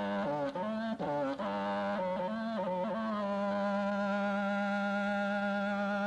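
Music: a single melodic instrument plays a short run of changing notes, then holds one long steady note from about three seconds in.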